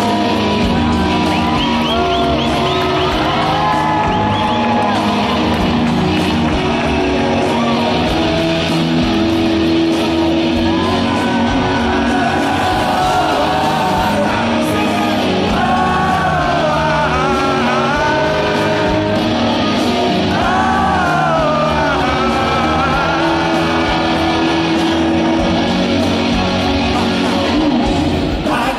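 Live rock band playing with electric guitars and bass behind a male lead singer. It is mostly held instrumental chords at first, with the sung vocal line coming through from about the middle.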